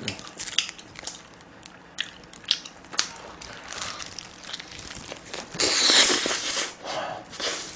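Close-miked eating: a bite into a slice of cheese-fries pizza and chewing, with scattered wet clicks and crackles from the mouth. A louder crackling burst comes about six seconds in.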